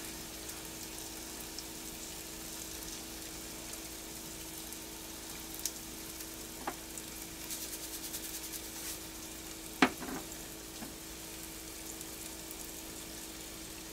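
Artichokes sautéing in a frying pan, a steady sizzle with light crackling, over a faint steady hum. A sharp knock about ten seconds in, with a few lighter clicks before it.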